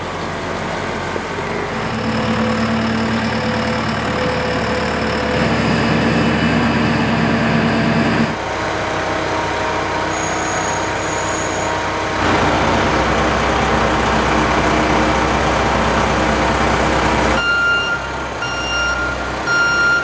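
Caterpillar telehandler's diesel engine running as the machine drives and works, the engine sound changing abruptly a few times. In the last couple of seconds its backup alarm gives a steady high tone over the engine.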